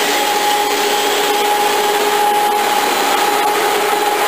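Karlville K5 Compact shrink-sleeve seaming machine running: a steady whirring mechanical noise with a constant mid-pitched whine in it.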